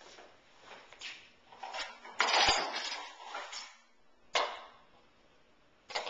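Dishes clattering and knocking against each other and the racks as a dishwasher is loaded, with a loud clatter a little past two seconds in and a single sharp knock near the end.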